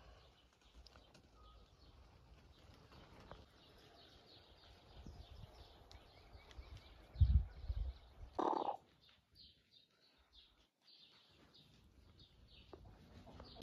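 Faint outdoor ambience with small birds chirping over and over. About seven seconds in there is a low thump, and just after it a brief louder sound.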